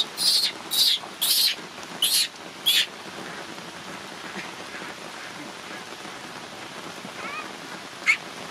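Baby macaque screaming in fear: five short, shrill cries in quick succession over the first three seconds, then a single short high call near the end. Steady rain falls throughout.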